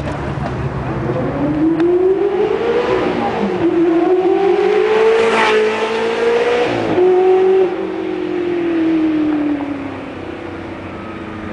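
Ferrari 360 Modena's V8 accelerating hard away from the listener, its pitch climbing through the gears with shifts about three and a half and seven seconds in. After that the pitch falls and the sound fades as the car drives off.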